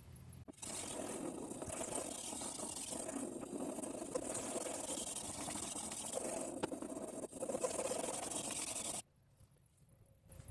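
Knife blade being scrubbed back and forth across a sharpening stone, held at a fixed angle by an Anystone guide clamp: a continuous scraping that stops about nine seconds in.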